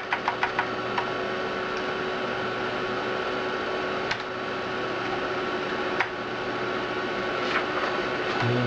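Steady whirring hum of an Amiga 4000's hard drive and power-supply fan, with several steady whining tones. A quick run of sharp clicks comes in the first second, and single clicks follow a few seconds apart.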